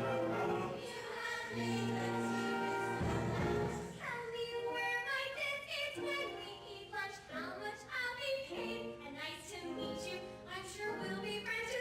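A live musical-theatre number: sustained accompaniment chords over a steady bass, then a group of voices singing together from about four seconds in.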